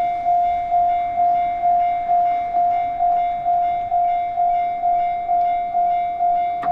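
Japanese railway level crossing warning bell ringing: a single-pitched ding repeated steadily about twice a second, each stroke fading before the next.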